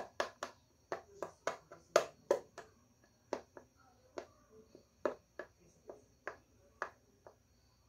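A fork docking a pressed quiche crust in a removable-bottom tart pan, with sharp, irregular clicks about three a second as the tines go through the dough and hit the pan. The holes keep the crust from bubbling when it is pre-baked. The clicks stop shortly before the end.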